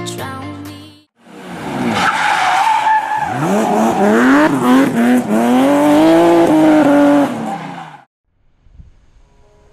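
A car engine revving hard, its pitch sweeping up and down again and again, with tyres squealing as the car skids. The sound starts about a second in and cuts off suddenly near the end.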